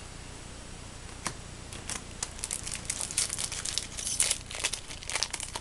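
Foil trading-card booster pack wrapper crinkling as it is handled: a single crackle about a second in, then dense, continuous crinkling.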